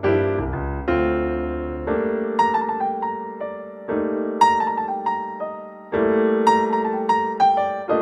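Background piano music: gentle chords struck about every two seconds and left to ring, with a light melody of short higher notes over them.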